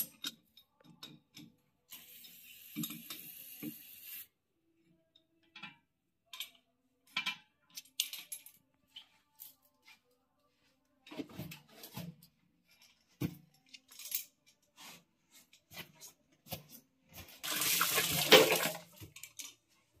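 Locking pliers and a metal fitting clicking and knocking against tile and ceramic as an old flush-valve fitting is unscrewed from the wall, with scattered clinks throughout. There is a short spell of hissing about two seconds in and a louder, longer spell of hissing noise near the end.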